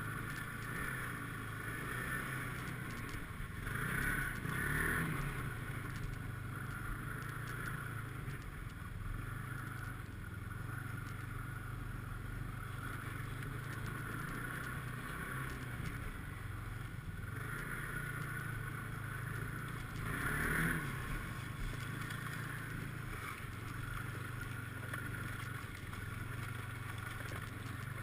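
Snowmobile engine running steadily while riding, with the engine note rising louder twice, briefly at about four seconds in and again about twenty seconds in, as the throttle is opened.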